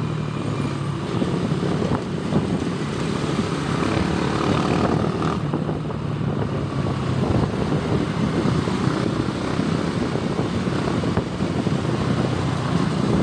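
Motorcycle engine running steadily under heavy wind rush over a helmet-mounted phone while riding in traffic.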